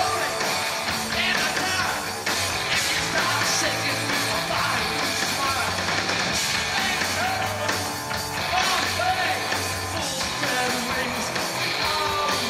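Live punk rock band playing at full volume: distorted electric guitar and drums, with a singer's voice over them.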